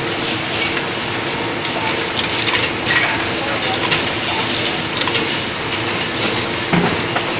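Vial inspection machine running: its chain-driven slat conveyor carrying glass vials makes a steady clatter of many small clicks over a constant mechanical hum.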